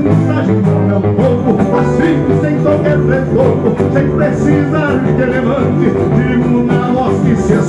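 Live band playing traditional gaúcho music from southern Brazil, with a man singing over the accompaniment.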